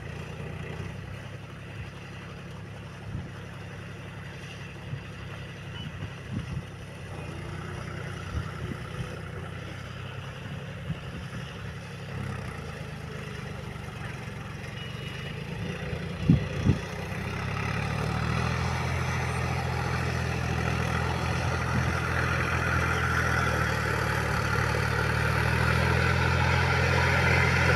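Diesel tractor engine running steadily as the iron-cage-wheeled tractor works a flooded paddy field, growing louder over the last third as it comes closer. A couple of sharp knocks sound about two-thirds of the way through.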